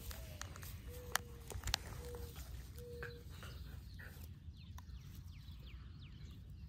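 Faint outdoor sounds of a puppy gnawing a wooden stick, with a couple of sharp cracks in the first two seconds, over a low rumble. Birds chirp a run of short falling notes in the second half.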